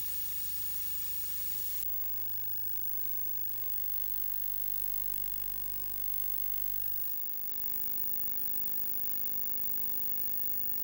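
Severn-class lifeboat's twin diesel engines droning steadily under way, heard from on board over an even hiss. The hiss drops a little about two seconds in.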